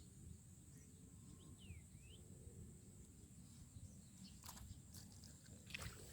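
Near silence: faint outdoor ambience with a steady high insect drone, a couple of short bird chirps about two seconds in, and a few soft clicks near the end.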